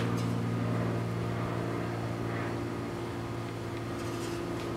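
Steady low mechanical hum of a running motor, even and unchanging, with a brief faint scrape near the end.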